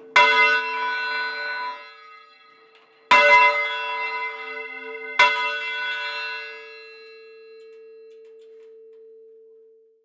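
Church bell rung full circle, its clapper striking three times, about three and then two seconds apart. Each strike rings on over a steady low hum, which lingers after the last stroke and fades near the end.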